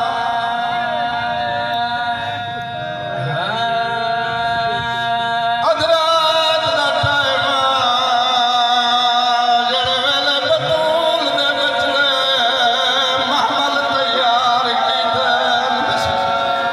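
A man chanting a Shia majlis recitation (zakiri) into a microphone in a sung, melodic style, holding long wavering notes.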